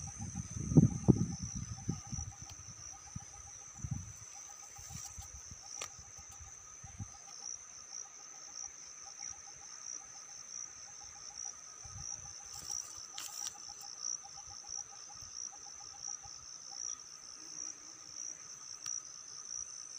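Garden insects trilling steadily: a continuous high pulsing trill, with a second, lower rapid chirping that stops about halfway through. Low rumbling bumps on the microphone in the first few seconds.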